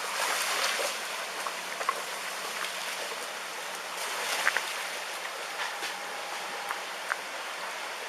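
Steady rushing of tsunami floodwater, with a few faint scattered knocks.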